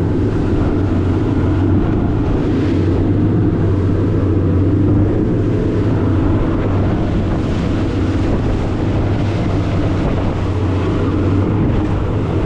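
A motorboat's engine running steadily under way: an even, low drone with no change in speed.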